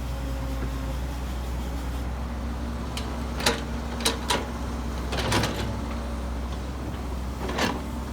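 Heavy diesel earthmoving machinery running steadily at a low drone, with a handful of short sharp knocks over the second half.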